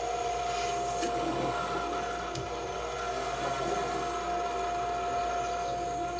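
Improvised electronic music from oscillators and electronics: one steady mid-pitched oscillator drone over a grainy, scratchy noise texture, with faint high whistling tones that recur and step up in pitch.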